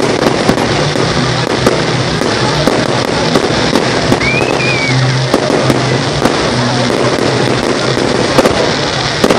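Fireworks display going off: a quick irregular string of sharp bangs and crackling pops, with music playing underneath.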